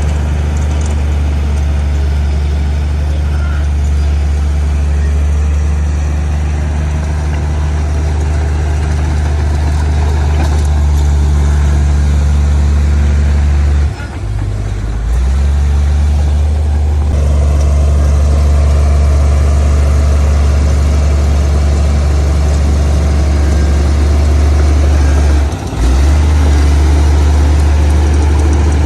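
Heavy diesel engine of earthmoving machinery running steadily with a deep, low drone, dipping briefly twice, about halfway through and near the end.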